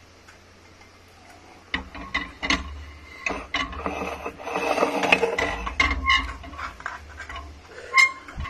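A metal-framed double-sided clock being handled and set: quiet at first, then a run of clicks, knocks and rattles from about two seconds in, busiest around the middle, with a sharp click near the end.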